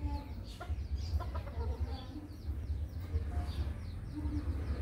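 Red junglefowl-type chickens clucking in short, scattered calls while foraging, over a steady low rumble.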